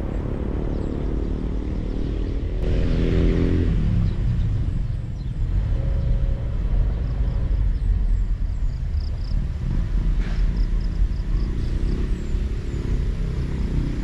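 Motor vehicle engines running, a steady low rumble with one louder swell about three seconds in, as of a vehicle passing close. A few faint, short high chirps sound in the second half.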